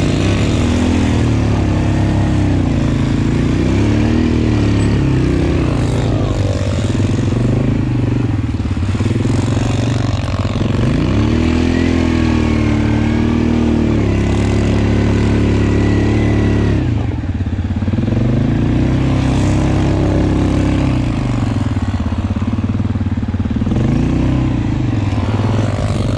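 Suzuki KingQuad 700 ATV's single-cylinder engine running under throttle while riding, its pitch rising and falling again and again as the throttle is opened and eased off.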